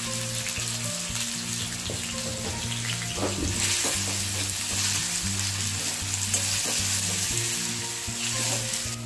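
Diced potatoes sizzling steadily as they fry in hot oil in a black iron wok, with a few scrapes of a perforated steel skimmer as they are stirred.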